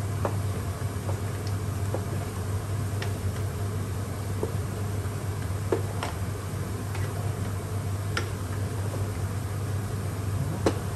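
Wooden spatula stirring spaghetti in cream sauce in a stainless steel pot, with irregular light knocks against the pot, the sharpest about six seconds in and near the end, over a steady low hum.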